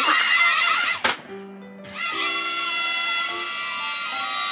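Small UFO toy drone's propeller motors whining, wavering in pitch for about the first second, with a sharp knock about a second in, then a steady high whine. Background music with short low notes plays alongside.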